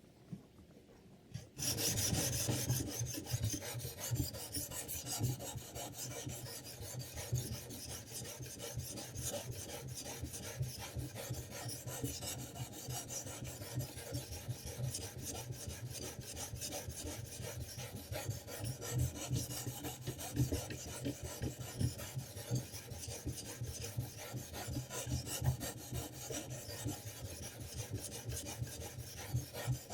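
Sharpening stone, likely a diamond plate, scraping along a knife blade in rapid back-and-forth strokes, starting about a second and a half in.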